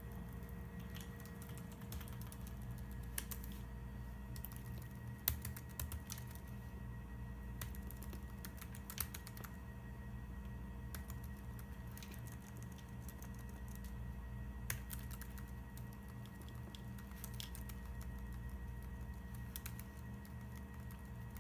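Typing on a laptop keyboard: irregular, uneven key clicks, with a steady low hum underneath.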